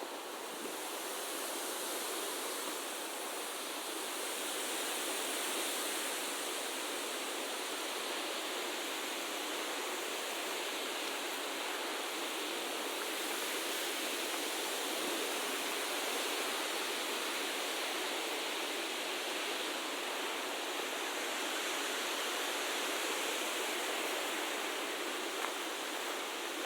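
Steady outdoor rushing noise, even and unbroken, with no low rumble.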